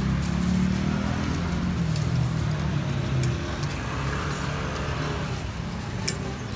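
Steady low engine rumble, with a few light sharp clicks, the clearest about six seconds in.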